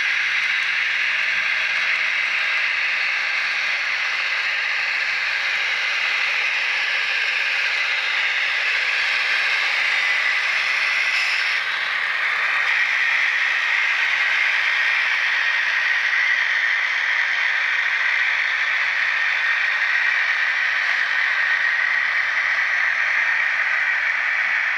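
HO-scale KiHa 82 diesel railcar models running with ESU LokSound V3.5 DCC sound decoders: the decoders' recreated diesel engine sound plays from the small onboard speakers, together with the cars rolling on the track, as a steady, thin hissing and rattling run.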